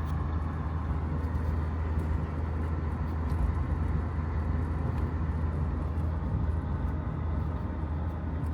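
Steady low rumble and road noise of a car driving, heard as a constant drone with no change in pitch.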